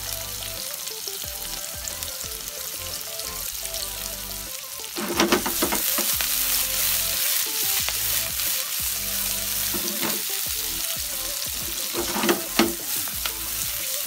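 Onion, ginger, garlic and black peppercorns sizzling in hot oil in a steel wok over a gas flame as the aromatics are sautéed, the wok tossed and stirred. The sizzle gets louder about five seconds in, with a few louder scrapes and knocks of the food against the wok around then and again near the end.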